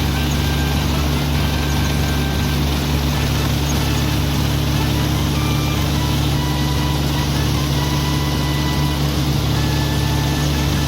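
Kubota combine harvester's diesel engine running steadily at a constant, loud level.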